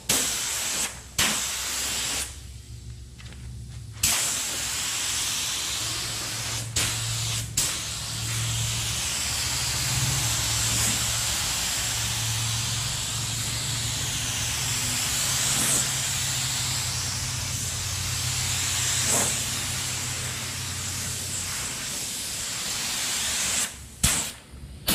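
Compressed-air spray gun spraying thick polyester primer: a steady hiss of air in trigger pulls, a few short bursts at first, a pause of about two seconds, then one long pass with only brief breaks that stops shortly before the end. A low hum runs under most of the spraying.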